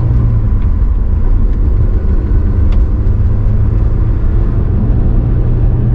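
Cabin sound of a 2001 Honda S2000 on the move: the 2.0-litre inline-four engine and road noise make a steady low drone.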